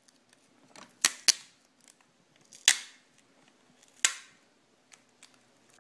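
About five sharp, separate clicks and snaps, a second or more apart, some with a short crackling tail. They come from handling the laptop's LCD panel while the adhesive tape over its video cable is peeled off the back of the screen.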